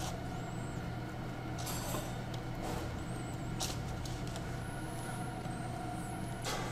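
A metal spoon scraping sticky cookie dough out of a stainless-steel bowl and dropping it onto parchment paper, a few scrapes and light clinks over a steady low hum.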